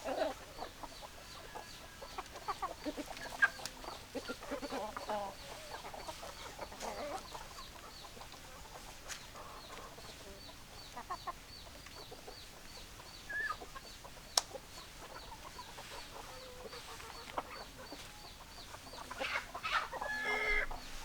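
Hens clucking in scattered bursts, with a louder flurry of calls near the end. A faint high chirp repeats about three times a second in the background, and there are a couple of sharp clicks.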